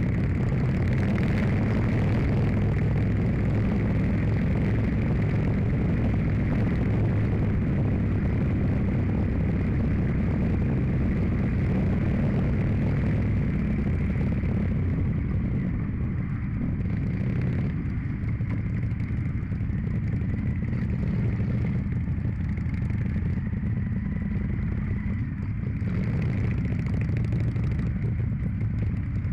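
Motorcycle engine running on the move, with wind rushing over the microphone. From about halfway through, the wind and engine ease off as the bike slows in traffic.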